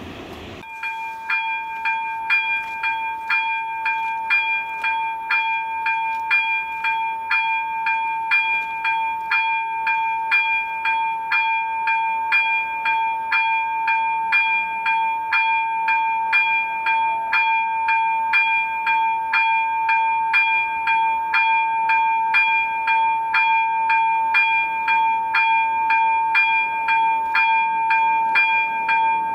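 Level crossing warning bell starting up about a second in, then ringing on in an even rhythm of about one and a half strokes a second, each stroke the same bright tone. It signals that the crossing has activated for an approaching train.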